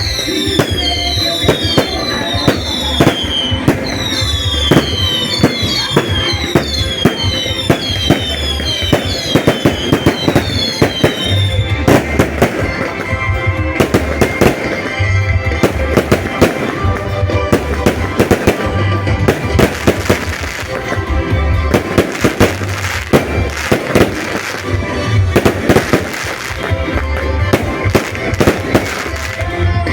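Fireworks going off in rapid succession, a dense run of bangs and crackling pops. For the first dozen seconds it is laced with many short whistles falling in pitch, one after another. Music with a steady low beat plays underneath.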